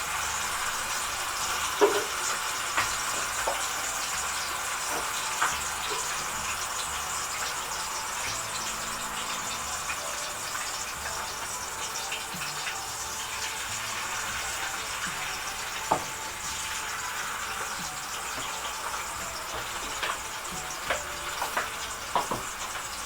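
Sliced potatoes frying in hot oil: a steady sizzle with occasional sharp pops.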